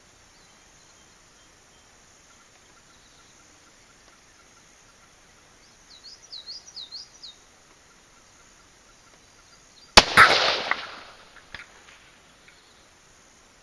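A single rifle shot from a Ruger American Predator in 6.5 Creedmoor fitted with a muzzle brake: one sharp, loud crack about ten seconds in that rings out for over a second. A faint tick about a second and a half after it fits the bullet striking the 8-inch steel plate at 400 yards. Earlier, a bird chirps several times in a quick run.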